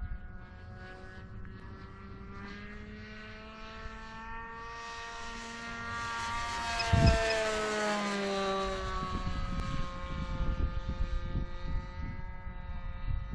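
A Seagull Boomerang RC trainer plane flying past under power. Its steady buzzing engine note grows louder, peaks with a short low thump about seven seconds in, then drops in pitch as the plane moves away.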